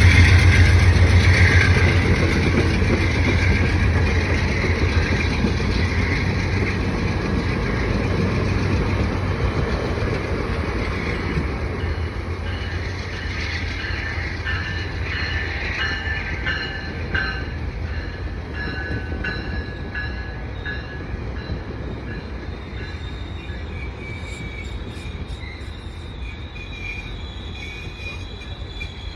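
Diesel-hauled passenger train running along the station tracks, its low rumble loud at first and fading steadily as it moves away. From about halfway, wheels squeal on the rails in several steady high tones that continue to the end.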